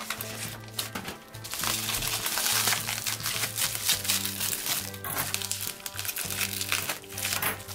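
Plastic shipping bag and bubble wrap crinkling and rustling as hands handle them and a blade cuts into the wrap. Background music with repeating low bass notes plays throughout.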